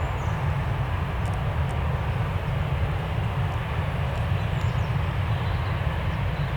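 Steady rumble of airliner jet engines, mixed with wind buffeting the microphone.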